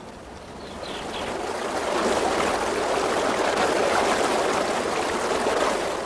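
Rushing water of a river running white over rocky rapids, swelling up over the first two seconds and then steady.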